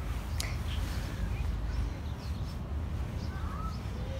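Wind rumbling on the phone's microphone, with a few faint high bird chirps and a single click about half a second in.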